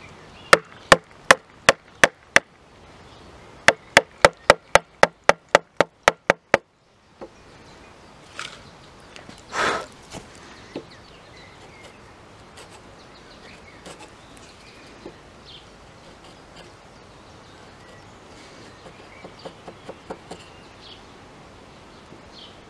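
Steel wood chisel trimming wooden plugs flush with a slatted hardwood countertop. First come sharp, evenly spaced knocks, about three a second: a run of six, then a run of about ten. Then one longer cut of the blade through a plug, and faint small ticks of paring.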